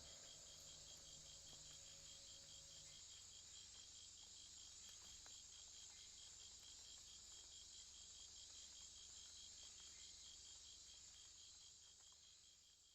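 Faint insect chorus: a steady high shrill with a cricket-like chirp pulsing about four times a second, fading out near the end.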